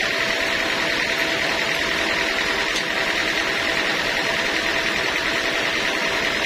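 Sawmill band saw running steadily: a constant mechanical din with a steady whine and a hiss.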